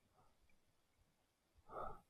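Near silence, broken near the end by one short breath from a person.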